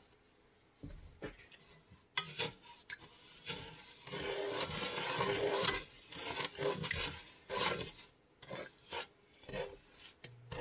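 Wooden spoon stirring a thick, grainy sugar-and-water fondant mixture in a metal stockpot, scraping and rasping against the pot in uneven strokes. About four seconds in comes a longer continuous scrape.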